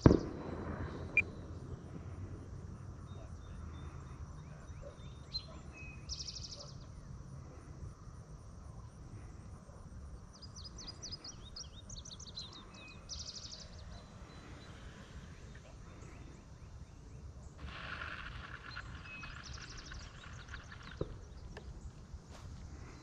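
Outdoor field ambience: a low rumble of wind on the microphone, with short bursts of high chirping every few seconds and a buzzy stretch near the end. A sharp thump right at the start.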